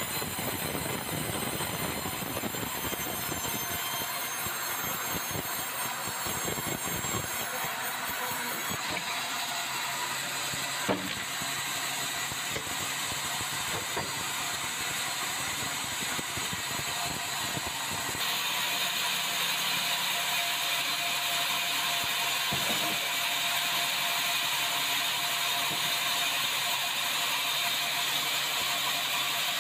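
Bandsaw sawmill running, its blade cutting through a red meranti log with a steady high-pitched hiss. One sharp click comes about eleven seconds in, and the sound shifts abruptly and grows slightly louder a little past halfway.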